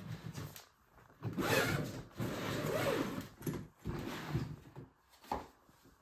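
A hard-shell suitcase being handled and shifted on the floor: two long rasping strokes in the first half, then lighter knocks and rubs.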